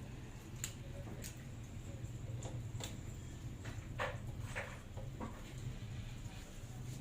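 Scattered light clicks and taps, about half a dozen spread irregularly, over a steady low hum.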